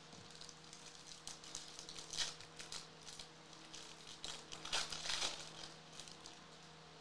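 Foil wrapper of a 2024 Topps Series 2 hobby pack of baseball cards crinkling as it is picked up and torn open by hand, in a run of irregular crinkles that are loudest about two seconds in and again around five seconds in.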